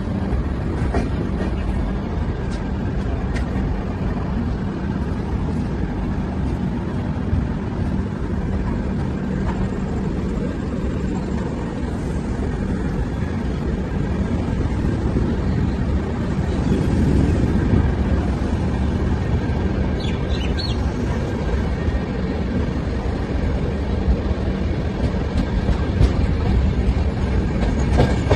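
Moving express passenger train heard from its open coach door: a steady rumble of wheels on the track with rushing air, swelling a little midway, with a few light clicks later on.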